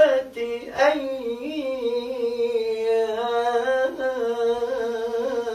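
A man's voice reciting the Quran in melodic tajweed style, drawing out 'sittati ayyām' ('six days') into one long held note that wavers and slides slightly in pitch.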